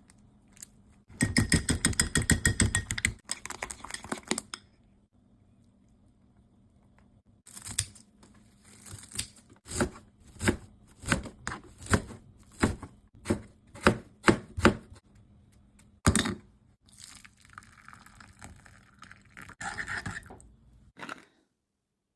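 Knife chopping food on a cutting board: a run of separate strokes about two a second, preceded by a brief burst of rapid tapping near the start and followed by one more strike.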